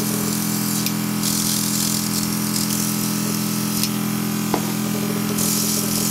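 Luminess Air airbrush compressor running with a steady hum, under a hiss of air from the airbrush gun spraying makeup. The hiss gets louder briefly about a second in and again near the end.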